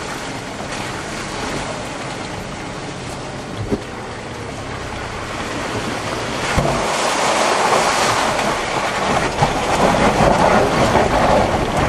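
Land Rover Discovery 3 driving over a muddy, rutted off-road track, heard from inside the cabin as a steady rumble of engine and tyres, with a couple of knocks as it rides over bumps. The rumble grows louder about halfway through.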